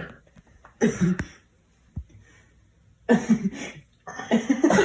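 A person's voice in short bursts, separated by quiet gaps, with a sharp click about two seconds in.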